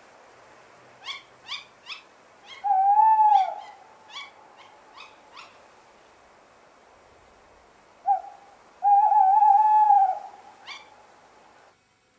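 Tawny owl calling: a run of short sharp calls, a loud hoot about three seconds in, and a longer, wavering hoot about nine seconds in.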